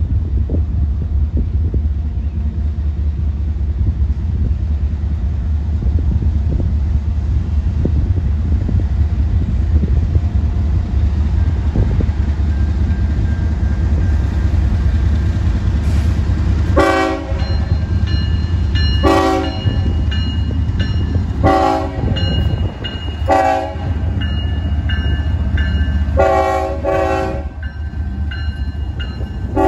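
Norfolk Southern diesel locomotives hauling a loaded coal train rumble steadily as they approach and pass close by. From about halfway through, the lead locomotive's horn sounds a series of short blasts, about five in all.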